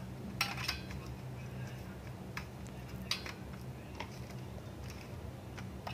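Faint light clicks and paper rustles as parchment paper circles are placed and pressed into the bottoms of aluminium cake cups, a few scattered taps over a low steady hum.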